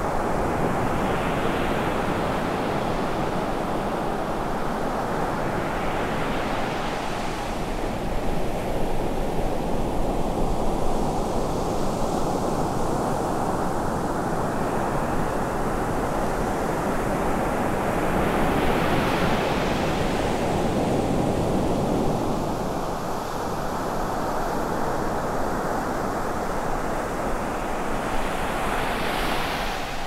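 Ocean surf breaking and washing up a sand beach: a steady rush of white water, with each breaking wave swelling into a brighter hiss about every five to seven seconds.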